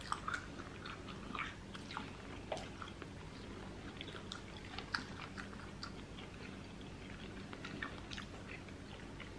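Close-miked chewing and biting of food, heard as scattered small clicks, over a faint steady hum.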